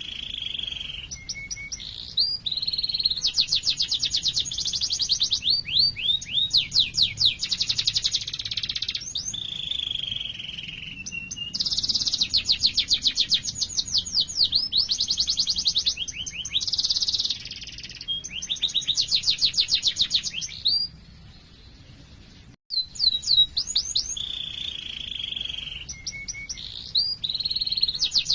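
Domestic canary singing a long, continuous song of rapid rolling trills and high chirping notes. The song breaks off briefly about three quarters of the way through, then starts again.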